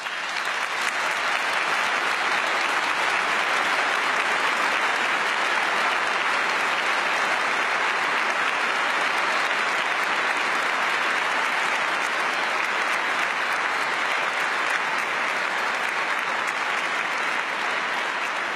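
Audience applauding: a long, steady round of clapping that builds within the first second and eases slightly near the end.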